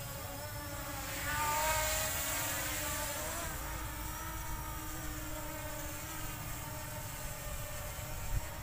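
K911 Max quadcopter drone's propeller motors whining as it lifts off and climbs, swelling loudest about a second and a half in, then holding a steady whine. Strong wind rumbles on the microphone underneath.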